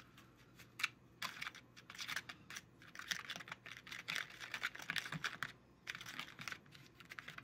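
Small plastic spoon stirring gummy-candy mix in a plastic mould-tray compartment: a fast run of light clicks and scrapes as the spoon knocks the tray floor and catches on the numbers moulded into the bottom.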